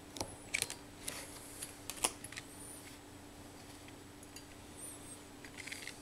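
Hand-pressed plastic syringe being handled: scattered light clicks and a few faint high squeaks, most in the first two seconds and again near the end, over a steady low hum.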